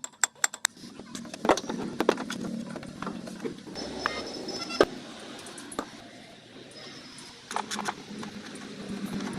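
Metal hand tools clinking and knocking against engine parts during a water pump replacement, with a quick run of sharp clicks at the start and scattered single knocks after.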